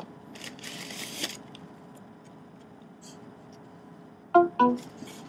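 Shipping packaging being opened: a sharp click, then about a second of rustling and crinkling, with small handling ticks after. Near the end a short vocal exclamation, "oh".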